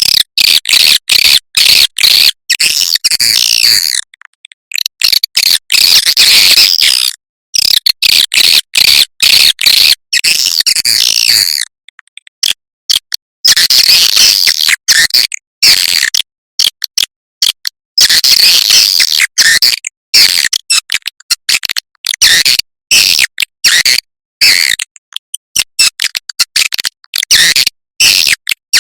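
Recorded swiftlet calls: rapid, high-pitched twittering chirps in dense bursts, cut off abruptly by short gaps. This is a lure call of the kind played from swiftlet houses to draw the birds in to roost.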